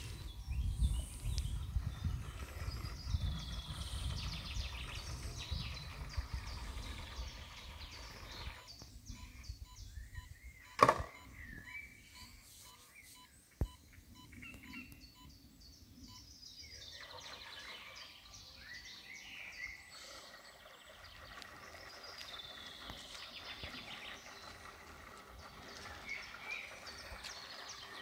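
Outdoor ambience of birds singing, with a low rumble in the first several seconds. Two sharp clicks come about eleven and fourteen seconds in, the first the loudest sound here.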